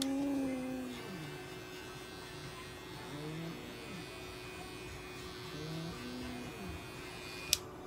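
Small cordless pet clipper running with a steady buzz as it trims the fur on a cat's paw, stopping with a sharp click near the end.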